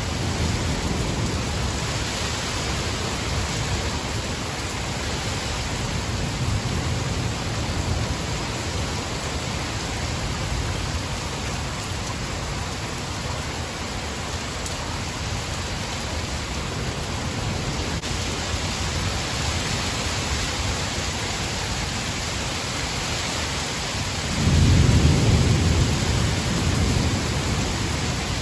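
Thunderstorm: steady heavy rain with low rolls of thunder, the loudest a sudden deep rumble near the end that fades over a few seconds.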